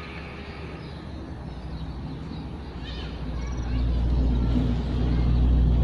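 A motor vehicle's engine: a low rumble that grows much louder from about three seconds in, as if passing close by.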